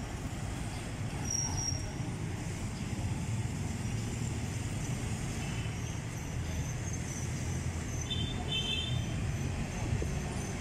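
Steady road traffic noise: a low, even rumble of passing vehicles.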